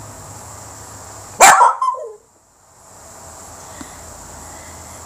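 A long-haired dachshund barks once, a single short bark that drops in pitch as it trails off.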